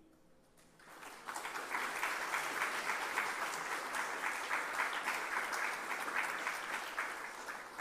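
A crowd applauding with many hands clapping. It swells in about a second in, holds steady, then tapers off near the end.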